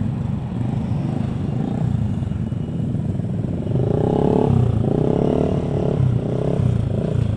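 Several motorcycle engines idling and rolling at low speed close by, with a few short revs rising and falling about four seconds in.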